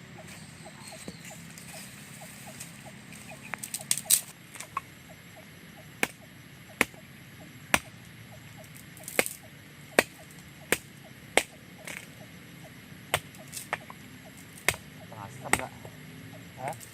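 Sharp chopping strokes, irregularly spaced at about one a second, starting about four seconds in. A faint, quick, rhythmic chirping of a small creature runs under the first half.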